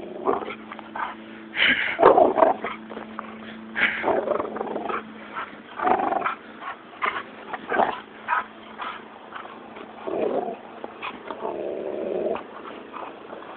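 Dog growling in irregular bursts as it tugs on a rope toy in a game of tug-of-war.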